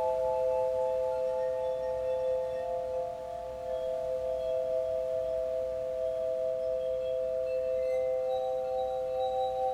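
Crystal singing bowls ringing together: several long, steady tones overlapping, with a new tone joining about eight seconds in.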